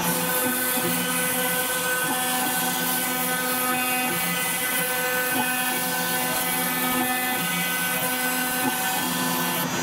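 CNC router spindle running at about 20,000 rpm with a steady high whine while a 2 mm diamond-cut carbide end mill cuts 2 mm FR4 glass-fibre board. Lower tones under the whine come and go every second or so as the machine moves along its cutting path.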